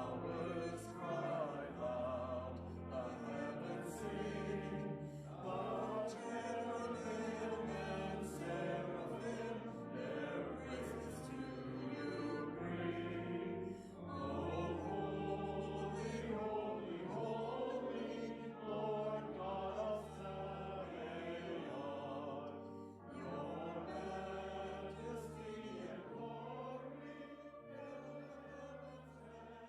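Church music after the benediction: sustained chords over a slow-moving bass line, fading toward the end.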